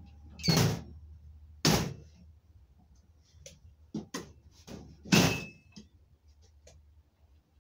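Three heavy thunks with lighter clicks and knocks between them, from a heat press being handled while its pressure setting is adjusted.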